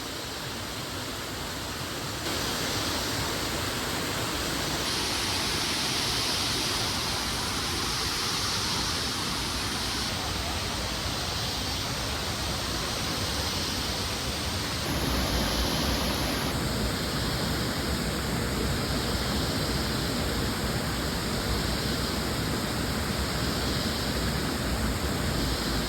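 Waterfall: a steady, loud rushing of falling water whose tone shifts abruptly a few times.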